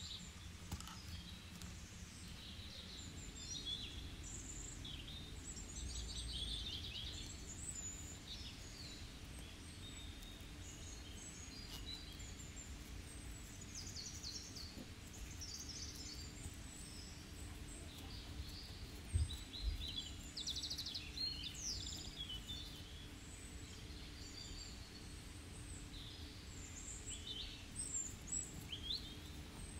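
Small birds chirping and trilling on and off over a steady low rumble. A single low thump comes about nineteen seconds in.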